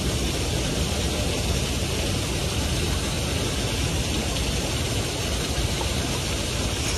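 Steady rush of water pouring over a small spillway: an even, unbroken noise.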